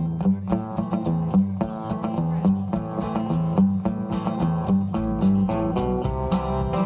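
A band plays the instrumental opening of a country-rock song: guitar picks a repeating pattern of single notes, and a deeper bass part fills in about five seconds in.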